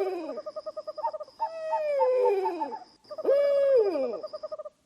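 Owl calls: a series of hoots, each sliding down in pitch, with a fast quavering trill on the held notes, three calls about a second and a half apart.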